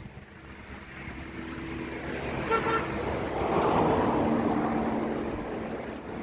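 A road vehicle passing by, growing louder and then fading away, with a short double toot of its horn a little before it is closest; its engine tone drops in pitch as it goes past.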